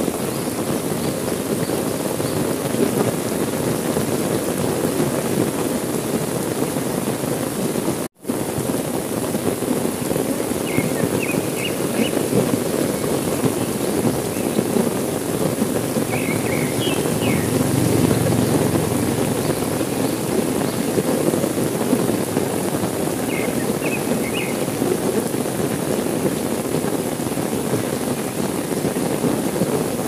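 Steady heavy rain, a dense even hiss that cuts out for a split second about eight seconds in. Faint high chirps in short groups of three or four come every several seconds behind it.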